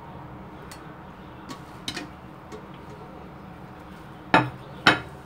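A serving scoop clinking and knocking against the rice cooker's pot and the plate as cooked rice is served: a few light clicks, then two sharp knocks about half a second apart near the end.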